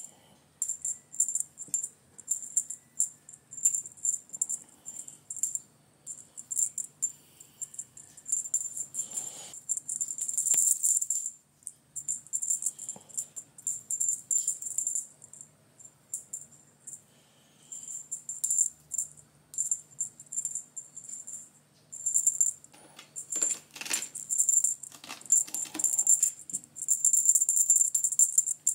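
A jingling cat toy shaken and waved in irregular bursts of bright metallic jingling, with a few pauses of a second or two between bursts.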